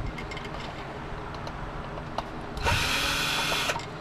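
Power drill running in one burst of about a second, roughly two-thirds of the way in, backing out screws from a space heater's sheet-metal casing; light clicks and rattles of metal parts before it.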